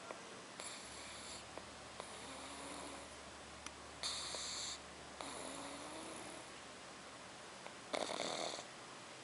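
Black pug puppy snoring loudly in its sleep: a slow cycle of noisy breaths, some carrying a low tone, with the loudest snorts about four and eight seconds in.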